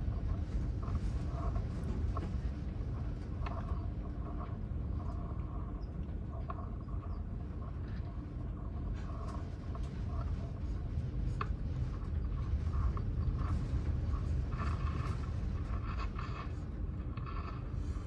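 Strong gusting wind of around 50 to 60 mph from a cold front's passage, heard from indoors as a steady low rumble that swells and eases a little, with faint brief tones and small clicks over it.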